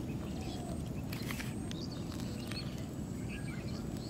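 Outdoor background noise: a steady low rumble with a few faint, short chirps and ticks scattered through it.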